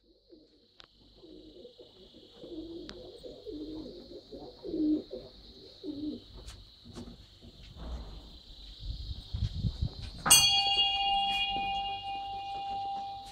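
A dove cooing in soft low phrases for the first ten seconds or so, over a faint steady high hiss. About ten seconds in, the bell on a turning prayer wheel is struck once and rings on with a clear, slowly fading tone.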